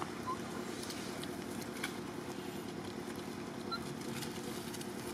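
Outdoor ambience with a steady low hum from an unseen source, light rustling and clicks in dry leaves, and two brief faint high chirps.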